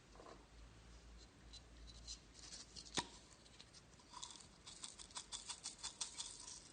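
Slime being squeezed and stretched by hand, giving faint, irregular sticky crackles and pops that grow denser in the second half, with one sharper click about three seconds in.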